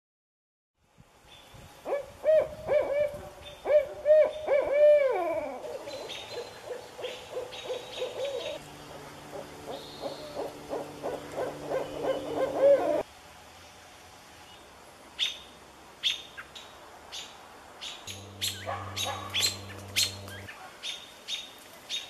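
Barred owls hooting: a run of arched hoots ending in one long falling slur, then a faster string of rhythmic call notes. After an abrupt drop in level comes a quieter stretch with a series of sharp clicks.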